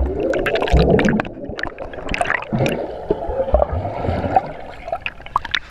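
Underwater in a swimming pool: muffled gurgling and churning of bubbles and water stirred up by swimmers kicking, with many scattered clicks and low thumps.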